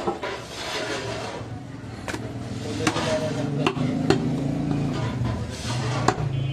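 Heavy butcher's cleaver chopping goat meat on a wooden log block: about six sharp chops at uneven intervals.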